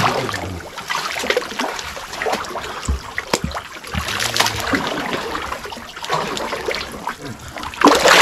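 Shallow muddy pond water sloshing and splashing as hands grope through the mud and heave out a clump of mud and debris, in several uneven surges, the loudest near the end.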